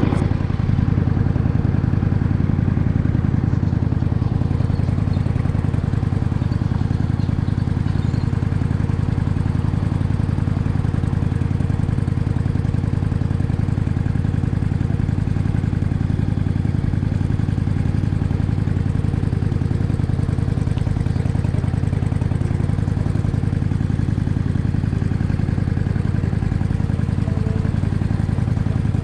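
Cruiser motorcycle's engine idling steadily while the bike stands still.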